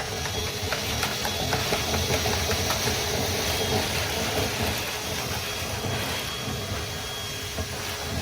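Dryer vent cleaning tool's electric motor running steadily, with many small rattles and ticks throughout as it works compacted lint out of the vent line.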